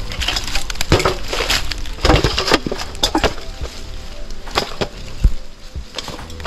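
Dry leaf litter and twigs crackling and rustling in irregular bursts, with a few sharper snaps, as hands and feet sift through the ground cover picking up fallen star apples.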